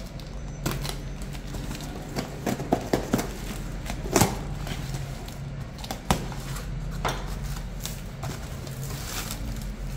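Knife slitting the packing tape on a cardboard box and the flaps being pulled open: scattered scrapes, rips and knocks on cardboard, the sharpest about four and seven seconds in, over a steady low hum.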